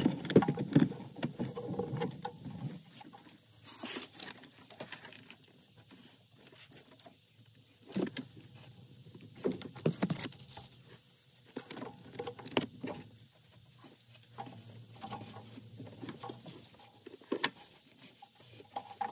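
A rubber serpentine belt being fed by a gloved hand over the engine's pulleys, with no engine running: irregular light rustling, scraping and scattered clicks, busiest in the first few seconds.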